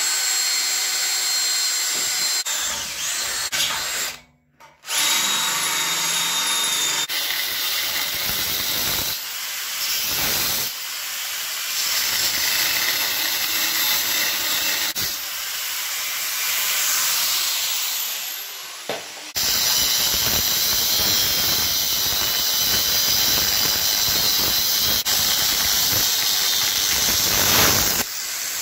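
A cordless drill boring into the steel tube of a cab door frame for the first few seconds, then an angle grinder cutting the rusty steel frame, running steadily with a few short breaks.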